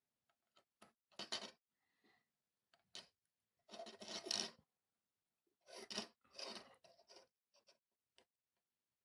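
Faint, intermittent scraping and rustling with small clicks from small parts and tools being handled while a kit circuit board is assembled by hand, in several short bursts, the longest about four seconds in.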